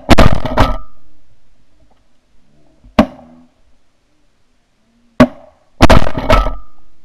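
Shotguns firing in a volley: a quick burst of blasts right at the start, single shots about three and five seconds in, and another quick burst of several shots near the end, each fading out over open ground.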